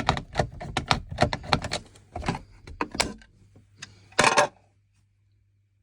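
A quick run of small clicks and knocks, like plastic covers and tools being handled, for about three seconds, then a short rustle a little after four seconds. A faint low hum runs underneath.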